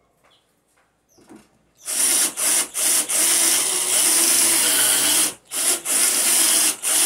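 Cordless drill boring into the edge of a wooden board with a long twist bit, the bit grinding through the wood. One long run of drilling starts about two seconds in and lasts about three and a half seconds, followed by several shorter bursts near the end.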